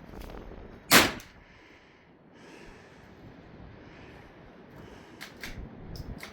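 A single rifle shot about a second in, sharp with a brief echo, fired while zeroing the rifle. A few faint clicks follow near the end.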